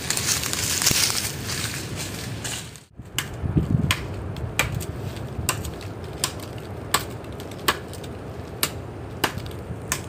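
Dry twigs and brush crunching underfoot for the first few seconds. Then a steady run of sharp chopping strikes, a little more than one a second, as a blade hacks into the trunk of a dead coconut palm to fell it.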